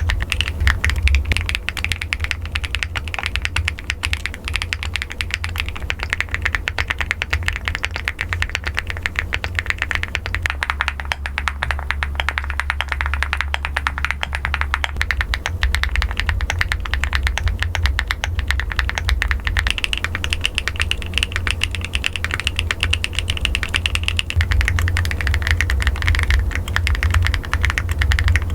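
Rapid typing on a custom mechanical keyboard: a dense, continuous run of keystroke clicks.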